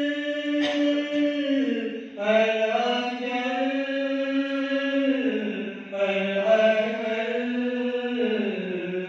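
Male voices chanting a munajat, a devotional supplication, into microphones: long held melodic phrases that step down in pitch at their ends, with brief breaths between phrases about two and six seconds in.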